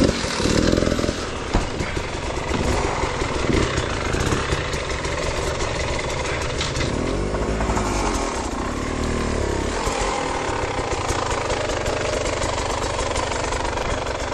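Enduro dirt bike engines running on a rocky trail, revved up and down in several bursts about a second in and again between about seven and nine seconds, settling into steadier running afterwards.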